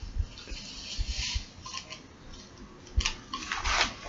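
A paper powder packet rustling and tapping as its contents are emptied into a small plastic mixing cup. Scattered light clicks and a short rustling patch come about a second in and again near three seconds, over low handling bumps.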